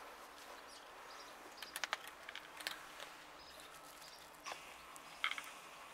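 Cats chewing dry kibble from a metal pan: faint, irregular crunching clicks.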